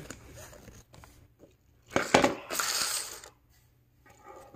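Handling of a plastic toy cassette and its foil and paper packaging on a tabletop: a sharp clatter about two seconds in, then about a second of crinkling rustle.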